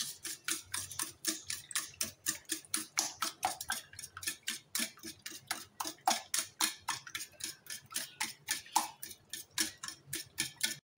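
Wire whisk beating eggs and sugar by hand in a stainless steel bowl, the whisk striking the bowl's sides in a steady run of clicks, about five a second.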